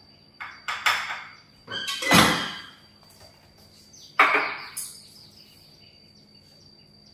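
Kitchen dishes and utensils clattering: bowls, plates and spoons knocked and set down on the counter in a few separate clinks and clunks, the loudest about two seconds in and another sharp one about four seconds in.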